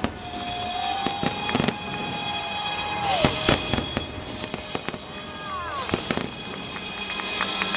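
Aerial fireworks display: shells bursting in a run of sharp bangs with crackling in between.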